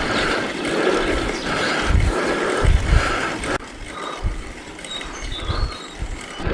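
Mountain bike riding along a tarmac road: steady tyre and drivetrain noise, with gusts of wind on the microphone. The sound drops abruptly about three and a half seconds in.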